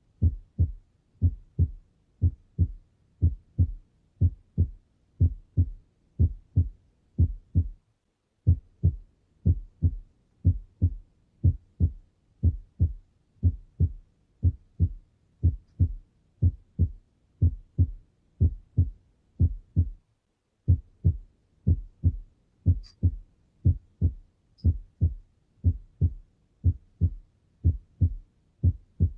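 Human heart sounds: a steady, regular lub-dub rhythm, each beat a pair of low thumps (the first and second heart sounds). The rhythm breaks off briefly twice and resumes.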